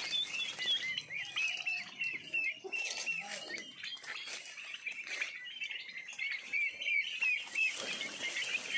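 A flock of two-month-old turkey poults peeping continuously, many short high chirps overlapping one another.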